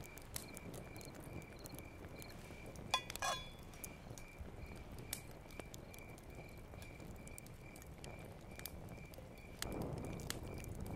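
Wood fire crackling with scattered sharp pops, while a cricket chirps steadily in the background at about two to three chirps a second. About three seconds in there is a short clatter with a ring, and near the end the fire's rushing noise grows louder.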